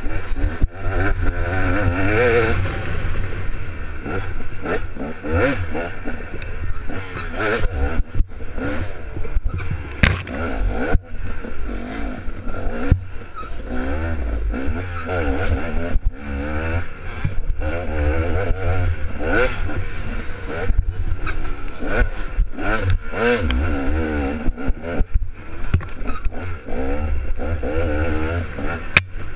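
Dirt bike engine heard from on the bike as it is ridden along a rough trail, revving up and dropping back every second or two, with frequent knocks and rattles from the bumps.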